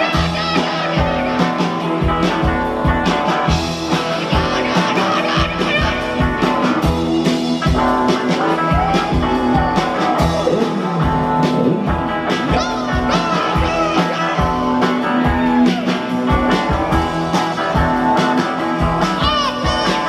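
Live rock band playing loudly: two electric guitars over a steady drum beat, with a voice singing at times.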